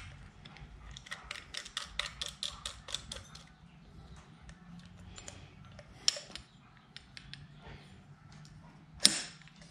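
Small metallic clicks and taps from a billet aluminium twist-throttle housing being handled and fitted together. A quick run of clicks comes a second or so in, then scattered single clicks, with a sharp, loud click near the end.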